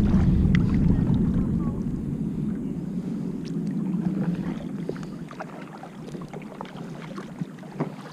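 Kayak paddle strokes: water splashing and dripping off the paddle blades in many small splashes. Wind rumbles on the microphone at first and dies down about halfway through.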